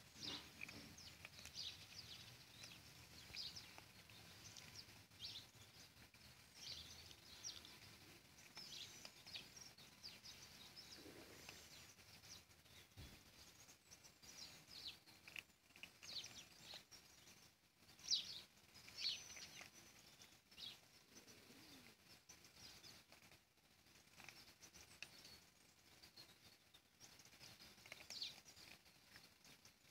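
Cats crunching dry kibble: faint, crisp crunches scattered irregularly, with a few faint high chirps among them and one sharper click near the middle.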